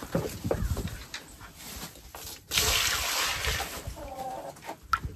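Water sloshing in a plastic bucket and then poured out with a splashing rush about two and a half seconds in, lasting about a second, into a chicken waterer pan. Low knocks from the bucket being carried come first, and a chicken calls briefly near the end.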